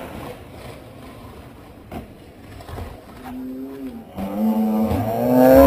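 Skateboard clack about two seconds in, then long, drawn-out yells that grow louder until the sound cuts off.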